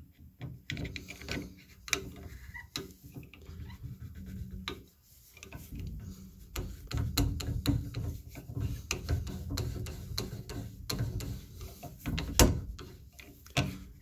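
Steel chisel blade, ground flat as a wide screwdriver, clicking and scraping in the slot of a brass shower-valve balancing spool as it is worked to loosen it. Irregular clicks throughout, with a sharper one near the end.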